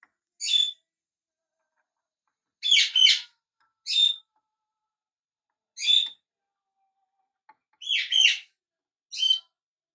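A small bird chirping: about eight short, high chirps at irregular intervals, some in quick pairs.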